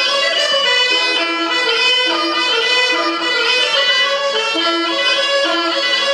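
Live traditional folk dance music: fiddle and bagpipe playing a melody over a steady, regular dance rhythm.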